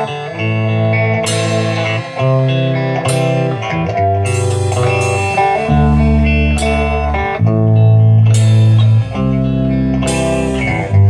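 Guitar music: chords struck and let ring, changing every second or so, over a strong bass line.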